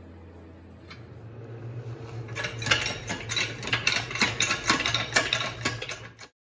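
Hydraulic press bending old square-headed nails into mug hooks: a low steady hum with a dense, irregular run of sharp metallic clicks and creaks as the nails give under the ram. The sound cuts off abruptly near the end.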